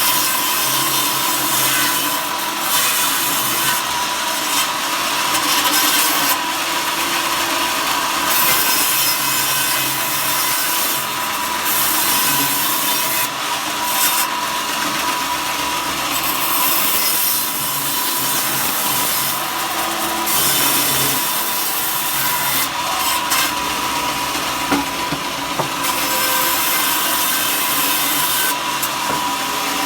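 Power saw cutting wood steadily, a continuous cutting noise over a thin steady whine.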